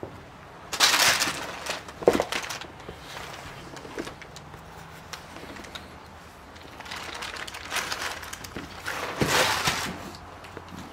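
Footsteps and clothing rustle while walking over a floor strewn with debris, heard as a few bursts of crunching and rustling, with a sharp knock about two seconds in.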